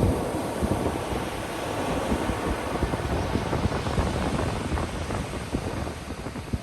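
Ocean surf washing onto a beach: a steady rush of breaking waves, a little louder at the start and easing slightly near the end.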